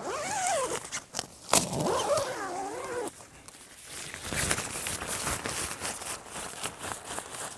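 Tent door zipper being pulled open in two strokes, each a buzzing whine that wavers in pitch with the speed of the pull, followed by the tent's fly-sheet fabric rustling and flapping as the door panel is pushed aside.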